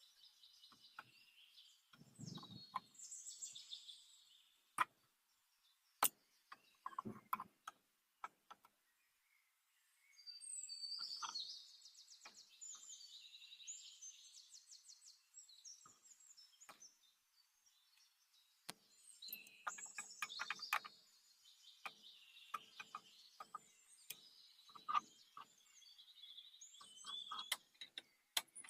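Small birds chirping, with quick trills, over scattered light clicks and a few dull knocks.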